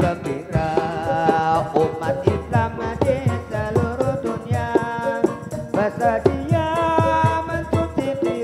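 Live Javanese topeng ireng accompaniment: drums keep a steady beat under a sung melody.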